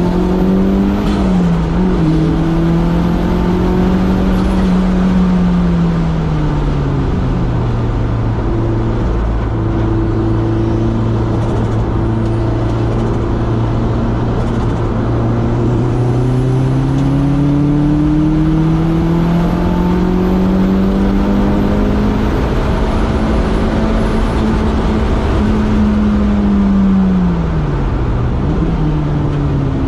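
Toyota MR2 AW11's swapped 3S-GTE turbocharged four-cylinder engine, heard from onboard, driven hard on track. Revs climb and fall through the gears and corners: they dip briefly about a second in, fall away for a few seconds, climb long and hold high, then drop sharply near the end. A thin high turbo whistle runs while the engine is high in the revs.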